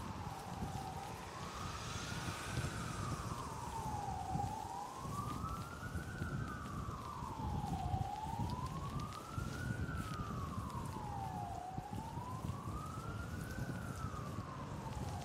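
An emergency vehicle's siren in a slow wail, its pitch rising and falling about once every four seconds, over a low rumble of wind and road noise.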